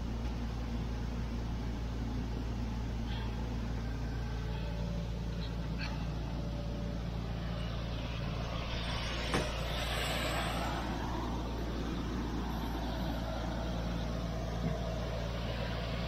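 A combine's engine running at a steady idle, a low even hum. A single sharp click comes about nine seconds in, with a short hiss around ten seconds.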